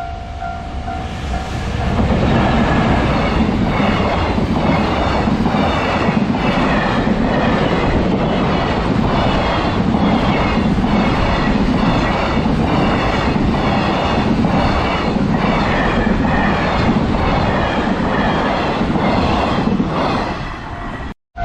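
A level crossing warning bell rings briefly, then a freight train hauled by a JR Freight EF210 electric locomotive passes over the crossing, its wagon wheels clattering in a steady rhythm over the rail joints.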